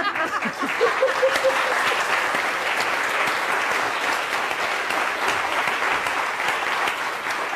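Studio audience applauding steadily, many hands clapping together.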